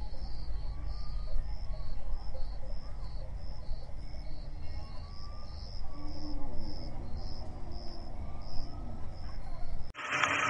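Crickets chirping in an even rhythm, about two to three chirps a second, over a low rumble, with a few soft clucks from a flock of white broiler chickens. Near the end the sound cuts to a short, louder rushing noise.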